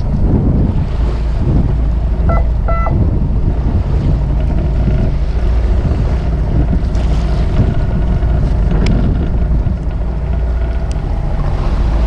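Strong wind buffeting the microphone over the low rumble of a fishing boat and the wash of choppy waves against the hull. A brief high tone sounds about two seconds in.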